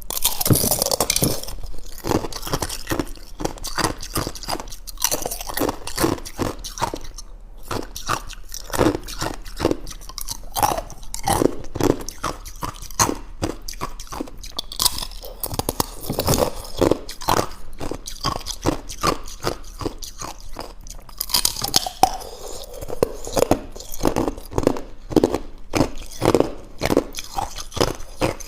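Thin ice being bitten and chewed: a continuous, irregular run of crisp crunches, with harsher crackling bites at the start and again around twenty-one seconds in.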